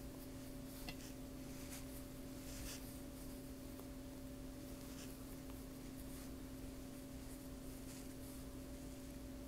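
Faint soft rustling and light scratches of yarn being worked with a crochet hook, the scratches coming irregularly, over a steady low hum.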